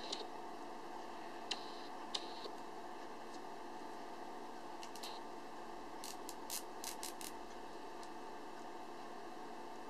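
White nylon cable tie worked by hand: a few scattered soft clicks, then a quick run of about seven ratcheting clicks about six seconds in as the tail is drawn through the locking head.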